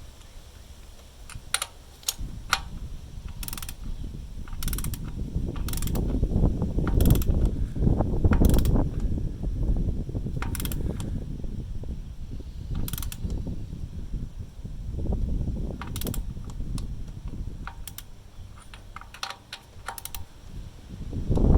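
Socket wrench ratchet clicking in irregular strokes while a new PCV valve is turned into a 2GR-FE V6 valve cover, with a low rumble between the clicks.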